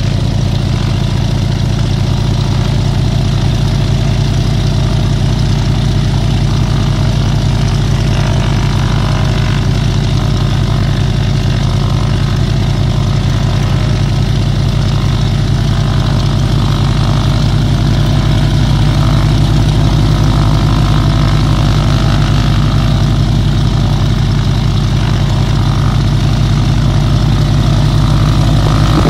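Z-37A Čmelák crop-duster's nine-cylinder Walter M-462 radial engine idling on the ground with the propeller turning, a steady loud run that grows slightly louder in the second half.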